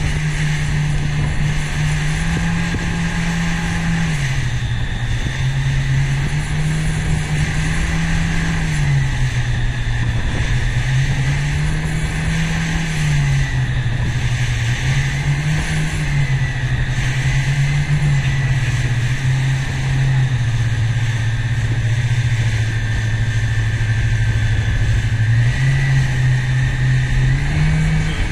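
Outboard engine of a rigid inflatable boat running under way, its pitch rising and falling every couple of seconds as the throttle is worked up and down, with a constant rush of wind and water. The engine drops to its lowest pitch for several seconds past the middle, then picks up again near the end.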